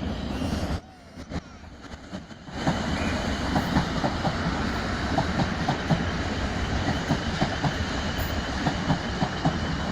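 Class 450 Desiro electric multiple unit running through, its wheels clicking over rail joints and points in a quick, uneven series. The sound drops away for about two seconds near the start, then comes back steady.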